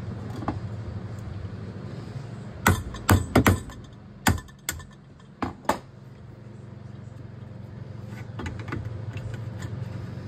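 Sharp knocks and clicks of tools on a garbage disposal under a kitchen sink, about eight in three seconds, over a steady low hum that fades in the middle and then builds back up.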